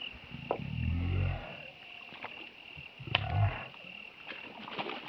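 A hooked snakeskin gourami thrashing and splashing at the water surface about three seconds in as it is pulled up on a pole line. Under it run a steady high insect drone and low, drawn-out grunting calls.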